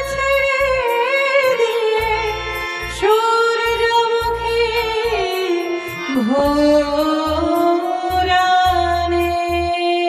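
A woman singing a Bengali song, holding long notes with vibrato and swooping down in pitch about six seconds in, over a steady ticking percussion beat.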